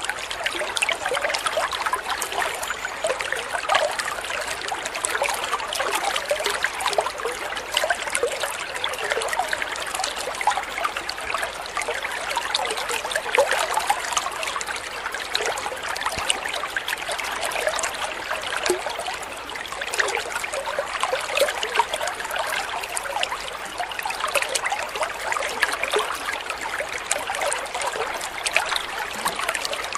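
A thin stream of water falling from a spout into a koi pond, trickling and splashing steadily.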